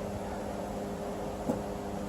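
Steady low mechanical hum, with a single light click about one and a half seconds in.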